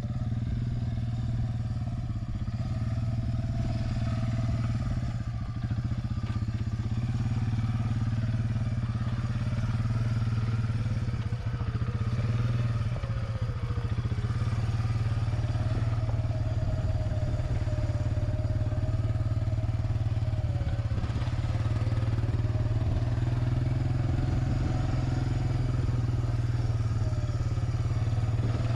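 Suzuki 400 ATV engine running steadily under way, holding an even pitch with no big revs.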